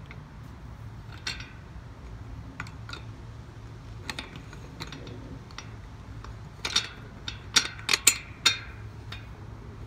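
Scattered clicks and taps of a steel garden-cart handle tube knocking against its plastic bracket as it is handled and fitted, with a quick run of sharp, louder clicks a little past halfway.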